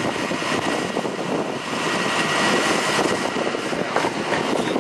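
Steady mechanical drone of an idling shuttle bus and its powered wheelchair lift, with a faint steady high whine running through it.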